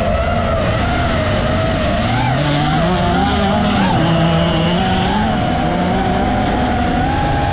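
Racing car engines revving, one rising in pitch from about two seconds in, under the steady wavering whine of an FPV drone's motors and propellers.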